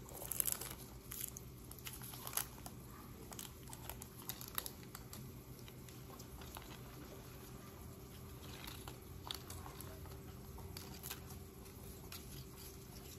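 Faint crinkling and small clicks as gloved hands unroll a Fruit by the Foot strip from its paper backing and wrap it around grapes, over a low steady hum.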